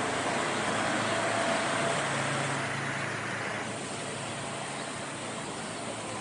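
A car running, with a steady engine note under road and tyre noise, louder at first and easing off about three and a half seconds in.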